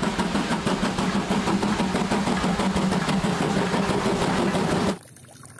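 Japanese JNR Class C11 steam tank locomotive (No. C11 325) running along the line, a steady mechanical sound with a constant low hum and a fast, regular beat. It cuts off suddenly about five seconds in.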